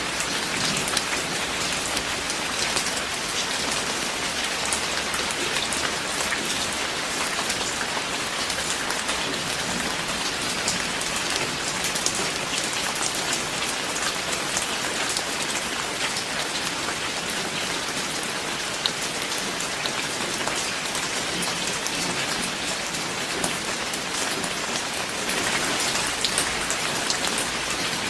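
Steady rain: an even hiss made of many separate drop ticks, growing a little louder near the end.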